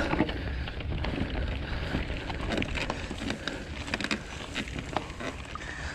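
Mountain bike climbing a loose dirt and gravel track: tyres crunching over stones with many small clicks and rattles, under a steady low rumble.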